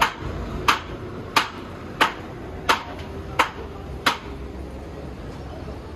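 A hammer striking in an even rhythm, about one and a half blows a second: seven sharp blows that stop about four seconds in, over a low steady rumble.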